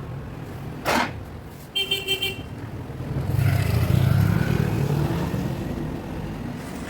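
A sharp knock, a short horn-like beep, then a motor vehicle passing: a low rumble that builds over a couple of seconds and fades away.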